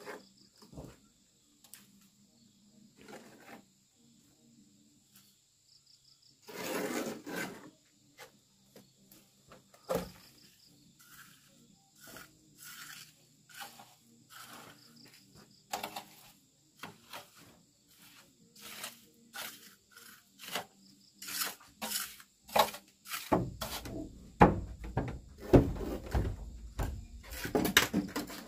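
Scattered scrapes and knocks of hand work, with one sharp knock about ten seconds in, turning into steady rough scraping over the last few seconds. A high, even insect drone runs underneath.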